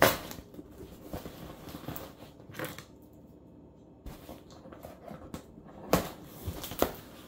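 Cardboard shipping box being handled and its clear packing tape picked and peeled, with scattered rustles and scrapes and a few sharper knocks about six and seven seconds in.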